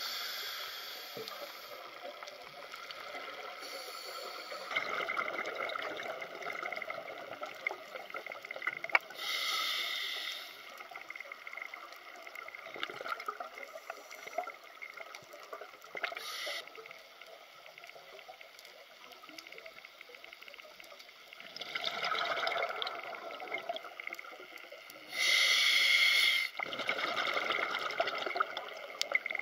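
Scuba regulator breathing heard underwater: bubbling exhalations in bursts of about a second, several seconds apart, the loudest near the end. Between them is a faint crackling hiss.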